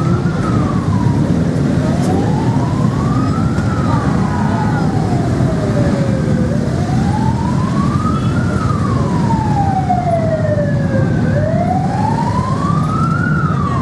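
A siren wailing in slow rising and falling sweeps, each lasting about four to five seconds, over the low rumble of many motorcycle engines running as the bikes pull away.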